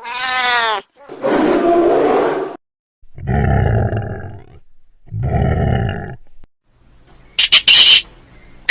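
A string of separate animal sound effects: a short call that rises and falls in pitch, then three low roars or growls, about a second each. Near the end, high, rapid squirrel chatter begins.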